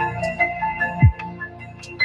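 Background electronic music: held bell-like synth notes over a deep bass drum whose hit drops in pitch, striking once about a second in.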